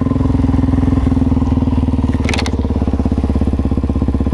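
Suzuki DR-Z400 supermoto's single-cylinder four-stroke engine running steadily, with a brief clatter of clicks about two seconds in.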